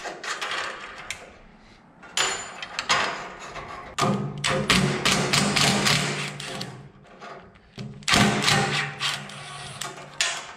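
Hand-tool work on an old forklift's sheet-metal covers: a run of knocks and taps, and twice a steady buzzing sound, the first about four seconds in and lasting about three seconds, the second shorter, near the end.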